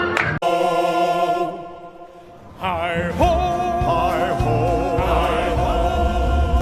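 Choral music with singing voices. It cuts off abruptly about half a second in, turns quieter, then returns at about two and a half seconds with held and wavering sung notes.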